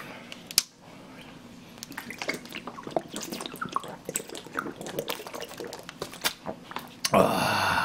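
A man gulping a drink from a plastic bottle: a run of small wet swallowing clicks, then a loud breathy exhale about seven seconds in.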